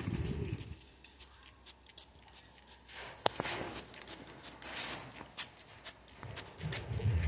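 Water mist sprayer hissing in two short bursts, about three and about four and a half seconds in, over scattered light ticks and patter of drops on the aviary. A low rumble comes in near the end.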